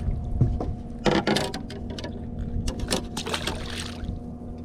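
A small boat's motor hums steadily, with scattered sharp splashes and clicks about a second in and again about three seconds in.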